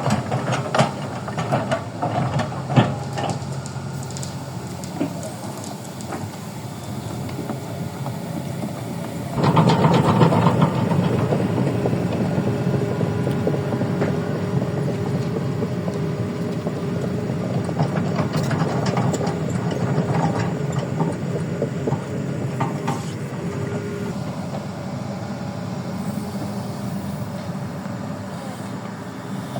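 An engine running steadily, with a run of sharp clanks and knocks in the first few seconds. A louder, fuller engine sound comes in abruptly about nine seconds in and holds steady.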